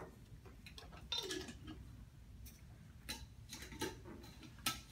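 Small glass jar and bottles handled on a tabletop: a handful of light clicks, taps and clinks spread over a few seconds, over a faint low hum.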